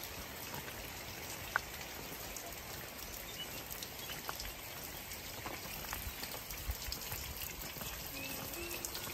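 Steady rain falling on wet stone paving, with scattered individual drops ticking close by and one louder tap about a second and a half in.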